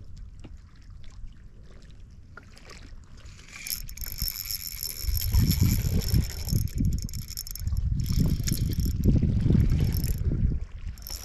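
Spinning reel cranked to retrieve line: a steady high whine from the reel's gears, starting about four seconds in and stopping near the end. Under it, from about five seconds in, a low rumble of wind on the microphone and water against the boat.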